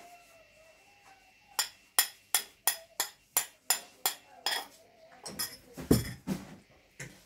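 A metal spoon clinking against a ceramic bowl, about ten sharp taps at roughly three a second, knocking curry out of the bowl onto a plate of rice. About six seconds in the bowl is set down on the table with a heavier knock, among a few smaller clatters.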